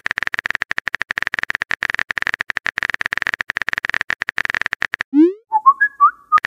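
Phone-keyboard typing sound effect: a fast run of tapping clicks for about five seconds, then a rising swoop and a short jingle of quick blip notes as the text message is sent.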